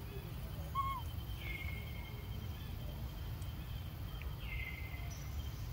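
Outdoor ambience in dense greenery: a steady low rumble under thin, steady high-pitched calls, with a short falling chirp about a second in.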